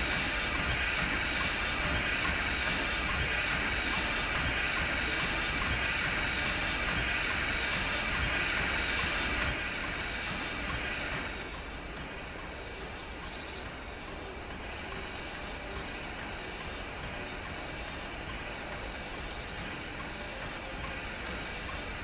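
Strasburg Rail Road #90's steam train with a steady hiss and low rumble that cut off about ten seconds in, leaving a quieter steady background.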